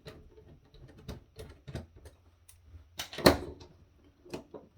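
Small clicks and taps of a screwdriver and plastic parts being handled while an electronic device is taken apart, with one louder clunk about three seconds in.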